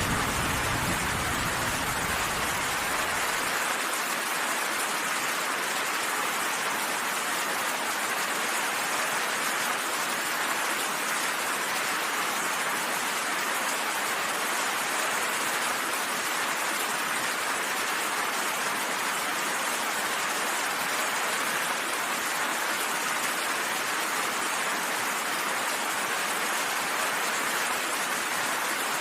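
Steady rain pouring, with the tail of a low thunder rumble dying away in the first few seconds.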